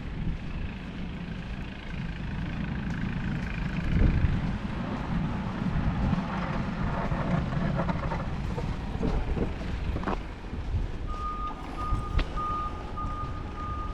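A truck's engine runs with a low rumble. About eleven seconds in, its reversing alarm starts beeping at a steady high pitch.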